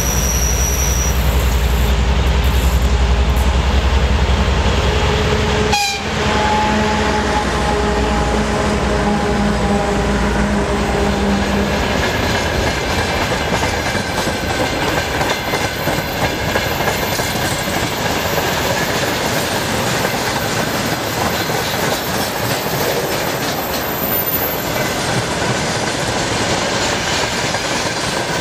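2TE10UK diesel locomotive's 10D100 two-stroke diesel engines running hard as it approaches and passes. Just after it passes, the locomotive horn sounds for several seconds. Then a long string of freight wagons rolls by, its wheels clattering over the rail joints with a faint squeal.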